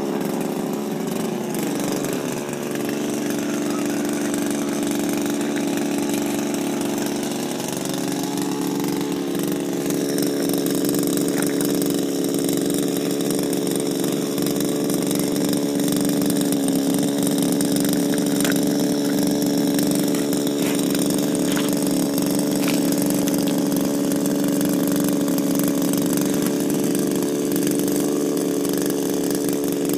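Shindaiwa power broom's two-stroke engine running with the paddle sweeper head on grass. Its speed dips about two seconds in, climbs back about eight to ten seconds in, then holds steady.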